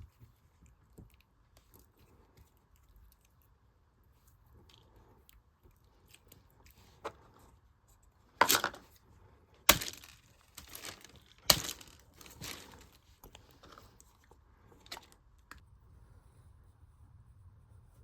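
Slime mixed with beads being squished and stretched by hand, crackling and popping, with soft scattered clicks at first and a run of loud crackling squishes about halfway through.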